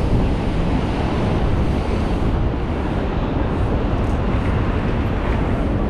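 Wind rushing over the microphone of a camera on a moving bicycle, a steady low rumble with no breaks.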